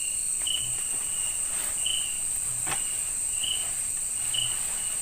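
Night-time forest insect chorus: a steady high-pitched drone with a short chirp repeating a little more than once a second. A single faint click sounds about halfway through.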